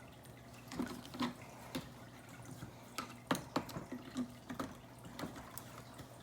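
Irregular faint clicks and taps of a screwdriver being worked around an office chair caster wheel, prying the wheel off its axle.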